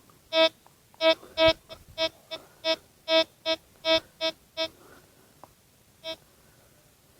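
Metal detector giving a quick run of short beeps at one steady pitch as the coil is swept over buried targets, about a dozen in the first five seconds and of varying loudness, then a single beep a little after six seconds.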